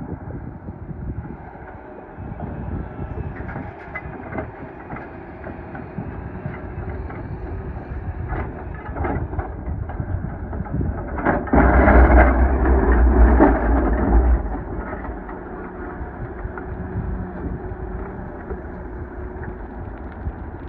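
Doosan DX420LCA excavator's diesel engine and hydraulics running, heard from the cab, with scattered knocks and rattles. About halfway through comes a much louder rumbling rush lasting about three seconds, then the steady running resumes.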